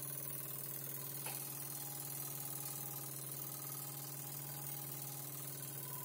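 Jensen 35 1/2 toy steam engine running steadily under load, driving a model bandsaw through a belt: a steady hum with a fast, even mechanical beat. One sharp click about a second in.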